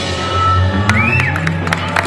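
Background music with a steady low bass note and sharp clicks.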